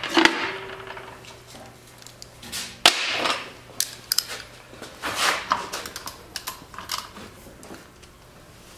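Scattered sharp metal clicks and clanks with short scraping rustles, from hands-on work on a tracked snowblower's drive frame, sprockets and rubber tracks; the sharpest clank comes about three seconds in.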